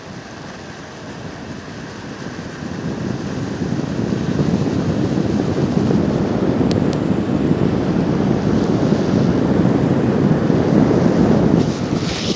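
Wind rushing over the microphone and longboard wheels rolling on asphalt, growing louder as the board picks up speed down the hill. Near the end the urethane wheels break into a hissing slide across the asphalt as the rider drifts into a corner; two sharp ticks come about halfway through.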